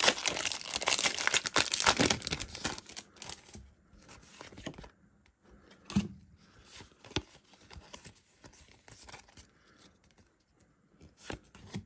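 Foil booster-pack wrapper being torn and crinkled for the first couple of seconds, then quieter rustling and a few light taps as the trading cards are slid out and handled.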